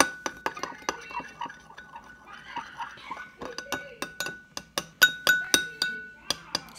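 Metal spoon clinking rapidly and repeatedly against a glass bowl as it stirs a runny slime mixture, the bowl ringing on after the harder strikes. There is a brief lull a little past the halfway point.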